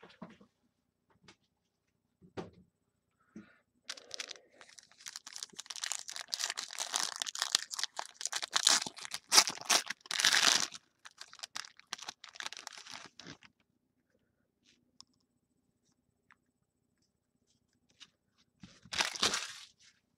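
Foil trading-card pack being torn open and its wrapper crinkled: about ten seconds of crackling and tearing in the middle, then a short rustle near the end.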